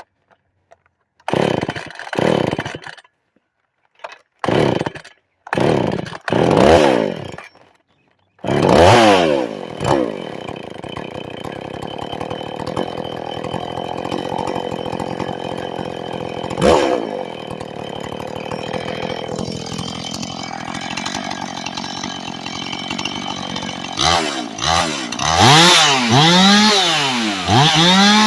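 Husqvarna 450 Rancher two-stroke chainsaw being pull-started while warm: several short bursts of firing, then it catches about eight seconds in, revs, settles to a steady idle with one short blip, and is revved up and down repeatedly near the end. It runs loud through an exhaust muffler with a hole in its side.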